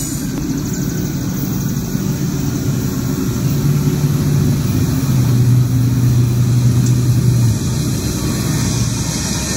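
Norfolk Southern diesel freight locomotive's engine running as the train approaches, a low steady drone that grows stronger about halfway through and then eases slightly.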